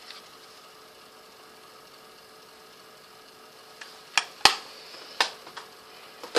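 Plastic eyeshadow palette cases being handled: a few sharp clicks and knocks, about six in the last two and a half seconds, the case lids snapping and the compacts set down, over a faint steady room hum.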